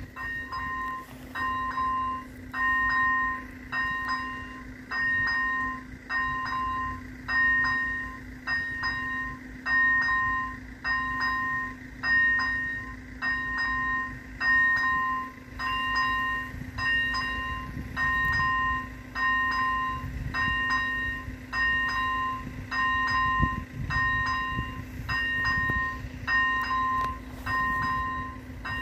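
Level-crossing warning bell ringing: an electronic ding repeating evenly about once a second, sounding while the crossing's red lights flash. Under it runs a steady low hum, and a low rumble swells in the second half.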